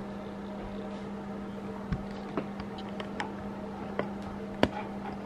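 Small plastic toy pieces being handled, giving several light clicks and taps at irregular moments, the sharpest about three-quarters of the way through, over a steady low hum.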